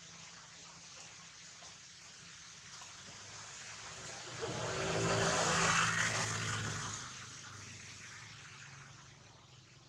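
A motor vehicle driving past, its sound swelling over a few seconds to a peak about six seconds in, then fading away.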